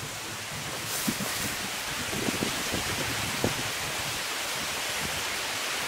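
Steady outdoor background hiss, like wind in grass and leaves, with a few faint short sounds around the middle.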